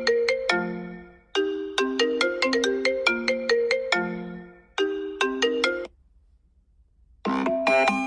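iPhone ringtones. A short melody of quick, sharply struck notes repeats about every three seconds and breaks off partway through a third pass. After about a second of silence, a different, denser ringtone starts about seven seconds in.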